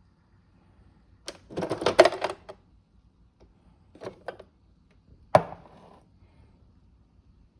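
Handling of a Nespresso Lattissima espresso machine and its cup: a click, a short burst of hard clattering, two more clicks, then one sharp knock with a brief ring.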